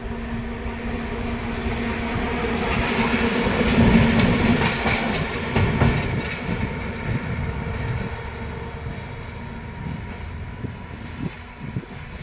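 A diesel locomotive running light as it passes close by: a steady engine drone with wheels clattering over rail joints. It is loudest about four seconds in, then fades as it moves away.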